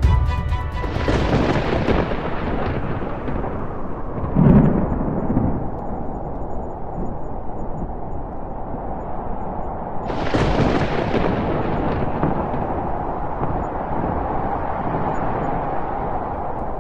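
Thunder: a crack about a second in rolling off into a long rumble, a short deep boom a few seconds later, and a second loud clap near ten seconds that rumbles on steadily.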